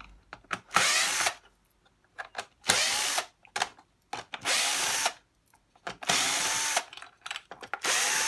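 Cordless drill-driver run in five short bursts, each spinning up with a rising whine, with small clicks in the pauses between, as it backs screws out of the shower's plastic casing.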